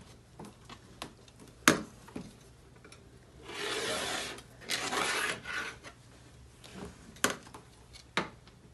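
Rotary cutter rolled through layered quilting fabric along an acrylic ruler on a cutting mat: two rasping cutting strokes a little before and after the middle. A few sharp clicks and knocks on the mat come before and after, the loudest about a second and a half in.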